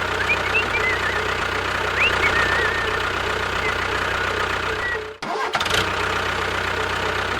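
A tractor-style engine running steadily, briefly cutting out about five seconds in, with birds chirping over it in the first few seconds.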